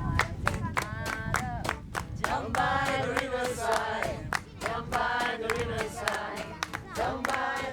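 Music with voices singing together over rhythmic hand claps or light percussion strikes.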